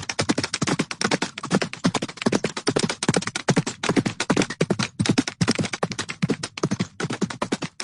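Horse sound effect: a rapid, irregular run of short percussive beats with no pause.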